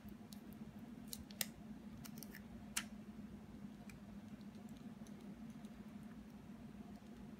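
A few small, sharp clicks of fingers handling an iPhone 6 battery and its adhesive strip while folding the tabs around the battery's edge, the two loudest about a second and a half apart. A steady low hum runs underneath.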